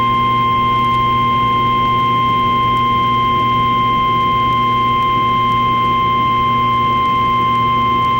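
Emergency Alert System attention signal: one steady, loud single-pitch alert tone, the NOAA Weather Radio style, held without change over a low electrical hum.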